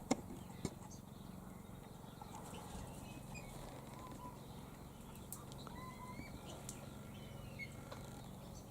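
Faint scattered bird chirps and short whistles over a steady low hum, with two sharp clicks in the first second.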